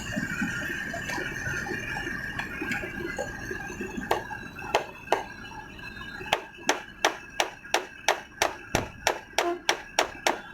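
Hammer tapping on a metal part, the blows becoming a steady beat of about three sharp taps a second after a few scattered strikes.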